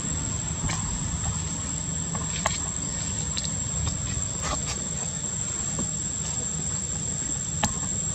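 Outdoor ambience: a steady low rumble under a constant high insect whine, with a few faint clicks.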